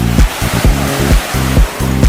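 Background electronic dance music with a steady thumping beat, about two beats a second, with a rushing surf-like noise swelling over it and fading near the end.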